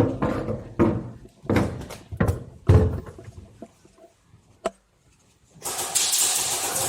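Several heavy knocks or thumps, roughly two-thirds of a second apart, then from about six seconds in a steady rushing hiss.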